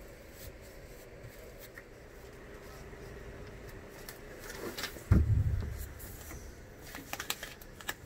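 Handling noises from laying boat flooring, over a faint steady hum. A dull thump about five seconds in is the loudest sound, followed near the end by a few quick clicks and rustles.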